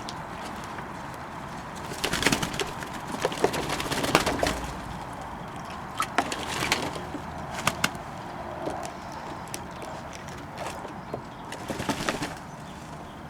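Fantail doves bathing in a bowl of water, splashing and flapping their wings in three short bursts of rapid crackling strokes.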